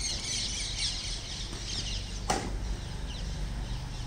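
Many small birds chirping in the trees, densest in the first half. A single sharp smack of a badminton racket hitting the shuttlecock about two seconds in.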